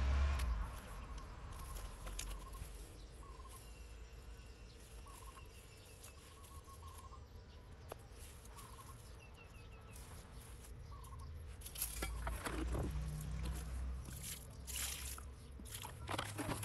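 Hands rustling and pressing loose soil and dry grass around a newly planted seedling, louder in two stretches in the second half. Faint short bird calls repeat in the background about once a second.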